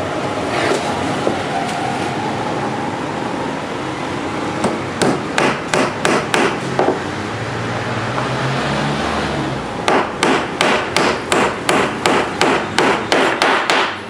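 A small hammer driving a thin nail into a laminated chipboard board. It lands a quick run of about eight blows, pauses, then strikes a steady run of about a dozen more, roughly three a second.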